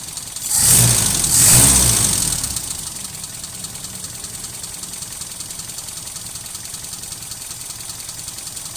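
Mitsubishi 4G33 four-cylinder petrol engine revved up briefly about half a second in, then dropping back to a steady idle, while its carburettor and ignition timing are being set by ear.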